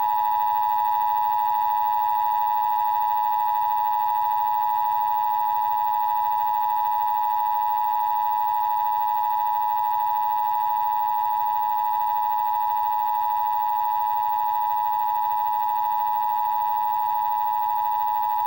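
Emergency Broadcast System attention signal: its 853 Hz and 960 Hz tones sound together as one steady, unbroken alarm tone, broadcast as a scheduled test of the system.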